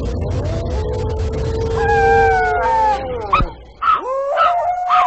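Dog howling: a long drawn-out howl that slides slowly down in pitch, then a few short yips and a second howl beginning about four seconds in. A low rumble underneath cuts off abruptly about three and a half seconds in.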